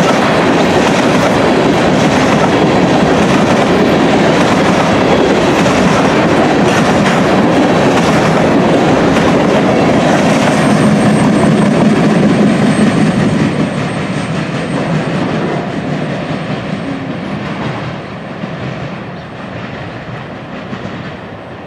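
Freight train of loaded covered hopper cars rolling past close by, a loud, steady noise of steel wheels on the rails. About 13 seconds in the last cars go by and the sound falls away as the train moves off.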